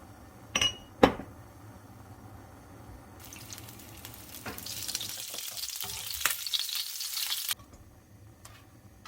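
Two sharp clicks in the first second, then olive oil sizzling hot in a waffle pan from about three seconds in, cutting off suddenly near the end.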